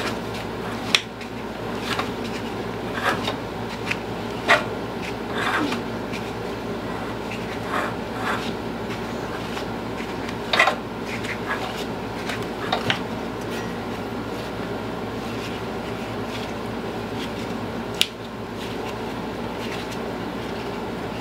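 Light clicks and metal clinks of hand tools and engine parts being handled on a riding mower engine, frequent in the first dozen seconds and sparse after, over the steady hum of a shop fan.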